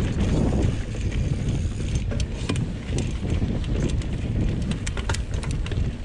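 Banshee Spitfire mountain bike rolling fast over rocky singletrack: a steady rumble of tyres and wind buffeting the microphone, with scattered sharp clicks and rattles from the bike over the rock.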